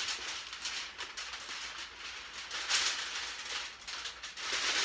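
Aluminum foil being crushed and crinkled in the hands: a continuous crackle of tiny clicks, louder about three seconds in and again near the end.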